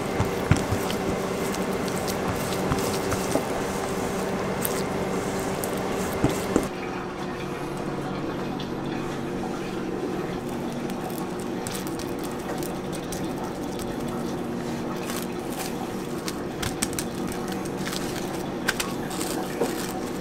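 A silicone spatula stirring and scraping a thick, pale mixture in a stainless steel bowl, with soft squishing and a few small clicks, over a steady hum. About six and a half seconds in it gives way to quieter handling, with a few sharp crinkles of plastic cling film near the end.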